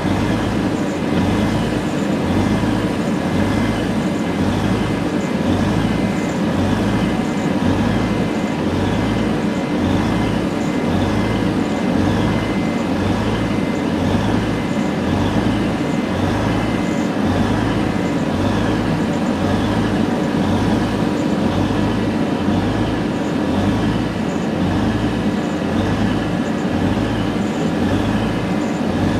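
Class 185 Siemens Desiro diesel multiple unit standing with its Cummins QSK19 diesel engines idling: a steady diesel rumble with a slow, even throb about three times every two seconds and a faint steady whine above it.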